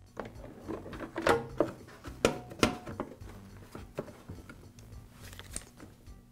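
Plastic motor cover being set onto a Briggs & Stratton lawn mower engine and pressed into place: a series of sharp plastic clicks and knocks, most of them in the first three seconds, then quieter handling.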